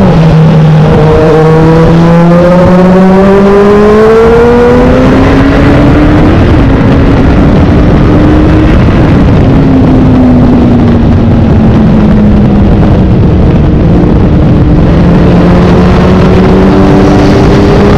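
Kawasaki Z800 inline-four engine riding under load. The engine note climbs steadily for about the first six seconds as the bike accelerates, holds, then eases down and settles to an even cruise. Heavy wind rush runs over the microphone throughout.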